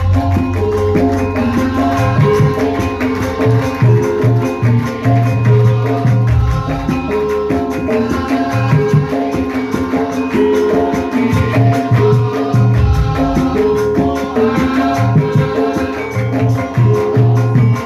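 Javanese gamelan ensemble playing, with the bonang's small bronze kettle gongs struck in quick, repeating patterns of ringing notes over a steady low pulse.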